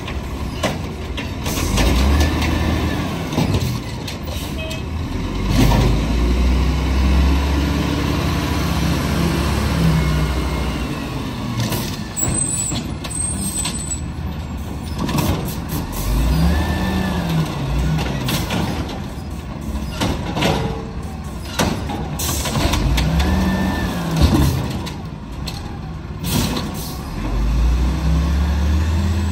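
1999 Volvo garbage truck with an Amrep automated side-loader body: the diesel engine revs up and falls back several times as it drives the hydraulic arm, with clanks as the arm grabs, lifts and dumps wheeled carts, and hisses of the air brakes.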